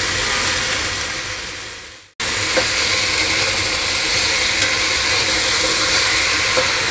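Chicken wings and potatoes sizzling in oil in a nonstick wok as they are stirred with a wooden spatula, with a few light knocks of the spatula. The steady sizzle fades out about two seconds in and cuts back in suddenly.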